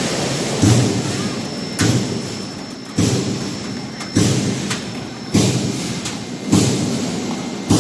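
The punch device of a noise barrier roll forming machine striking steadily, a heavy thump a little more than once a second, over the line's steady running noise.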